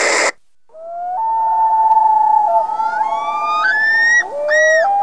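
Siren-like wail, opening with a brief burst of hiss. Several held tones then slide upward in steps, and near the end they break into a fast up-and-down warble.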